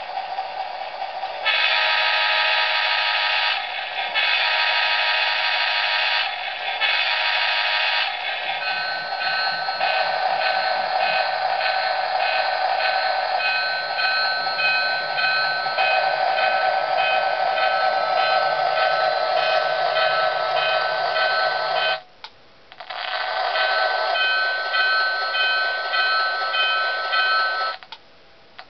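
Lionel O-gauge NASCAR GP-38 model diesel locomotive's TrainSounds electronic sound system: three horn blasts, the last one shorter. Then the recorded diesel engine runs with the bell ringing steadily as the locomotive moves off, the sound cutting out briefly twice.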